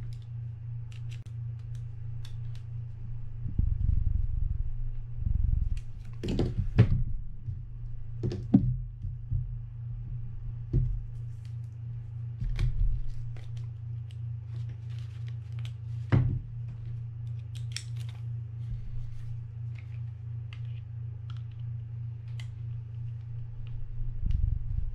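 Small clicks, taps and knocks of a screwdriver and the metal and plastic parts of a Penn Spinfisher 5500SSV spinning reel being handled as its screws are loosened to open it. The louder knocks come about six, eight and sixteen seconds in, over a steady low hum.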